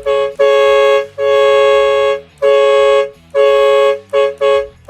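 DNY-H100 twin-tone air horn blowing a run of about seven blasts, some long and some short, its two steady pitches sounding together as one chord.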